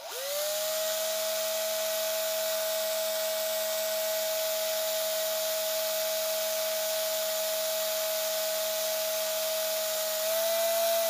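Cordless drill with a 5 mm Dexter glass bit, run with light pressure against a glass test tube to bore a hole. The motor whines up to speed at the start, holds a steady pitch over a hiss, rises slightly near the end and stops.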